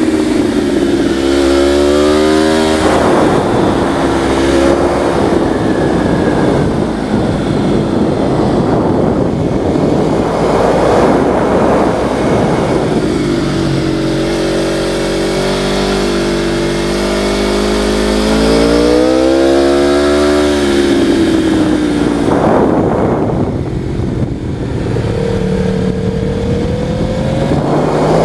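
A small, high-revving vehicle engine being ridden hard. It climbs in pitch and drops off sharply several times, with wind rush over it.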